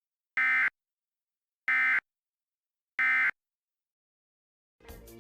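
Emergency Alert System end-of-message data code: three short, identical buzzing digital bursts about a second apart, the SAME signal that closes an alert. Music fades in near the end.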